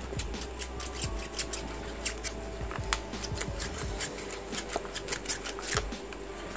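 A thin sheet of X-ray film scraping and crackling in short irregular ticks as it is slid under the edge of a smartphone's plastic back cover, cutting through adhesive softened by heat and alcohol. A steady low hum runs underneath.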